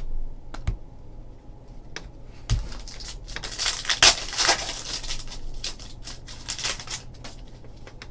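Trading card packs and cards being handled: a wrapper crinkling and cards rustling in two stretches, with a few sharp taps and a low thump on the table.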